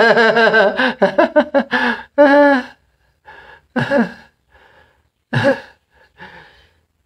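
A man laughing: quick voiced laughs in the first two seconds or so, then a few separate breathy, gasping bursts of laughter with pauses between.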